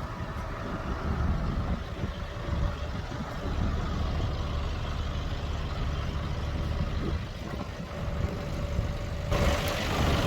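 A 4x4 vehicle's engine running with a steady low rumble. Near the end the sound changes abruptly and a loud hiss comes in on top.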